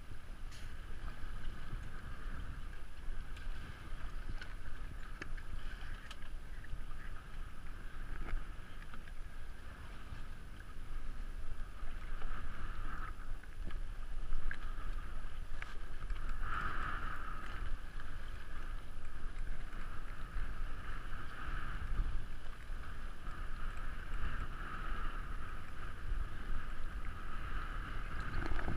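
Wind buffeting the microphone and water rushing along the hulls of a catamaran sailing through choppy water, a steady noise.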